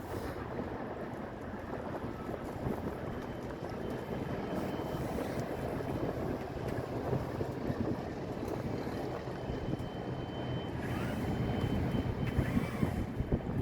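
Wind buffeting the microphone over the rush of a sailboat under way, a steady rough noise. A faint thin high tone comes in about ten seconds in.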